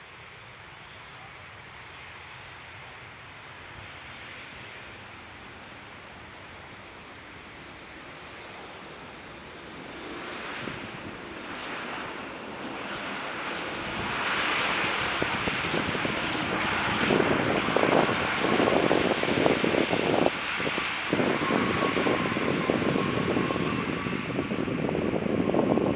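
Jet airliner coming in to land, its engine noise swelling from faint to loud about ten seconds in and staying loud, with a steady high whine over the roar.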